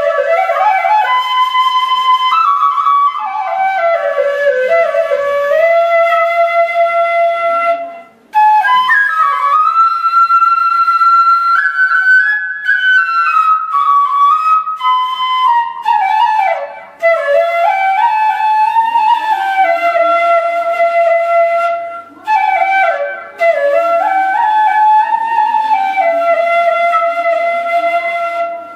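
Bansuri (bamboo flute) played solo: a single melody line that slides and steps between notes, broken by a few short pauses for breath.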